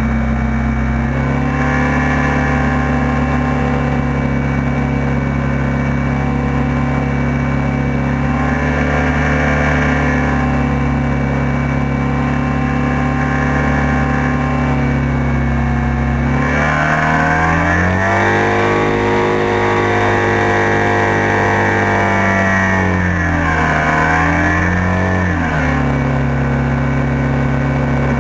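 Hovercraft engine and fan running steadily while underway, heard on board. About 16 s in it revs up to a higher pitch and holds there, with a short dip near 24 s, then settles back down to the lower speed about 25 s in.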